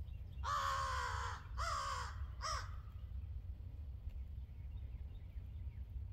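A crow cawing three times in quick succession, each caw shorter than the one before.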